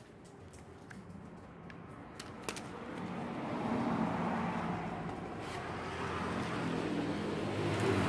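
A motor vehicle's engine passing by, building up from about two seconds in and staying strong through the rest, with a few light clicks in the first few seconds.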